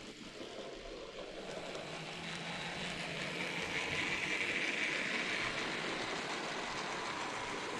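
N gauge model train running along the track: a steady electric motor and wheel whirr that grows louder about two seconds in and is loudest in the middle.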